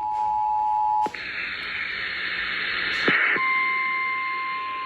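The Emergency Alert System's two-tone attention signal cuts off about a second in with a click. About two seconds of radio hiss follow, then the steady single-tone NOAA Weather Radio alert tone begins. Together they are the alert tones that lead into a relayed flash flood warning.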